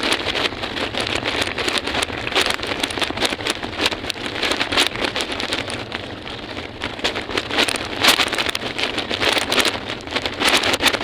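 Steady crackling, rattling noise of small wheels rolling over rough pavement, with wind buffeting the microphone.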